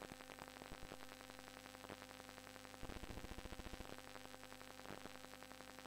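Near silence: room tone with a faint steady hum, and a brief run of rapid faint ticking about three seconds in.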